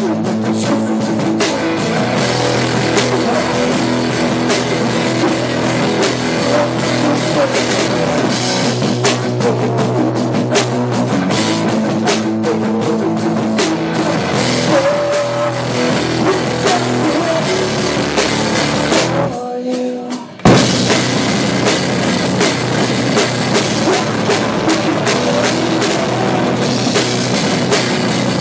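Loud rock music with a drum kit, the bass drums played in fast strokes on a double pedal over a steady band backing. About nineteen seconds in, the music thins out briefly, then comes back in with a loud hit about a second later.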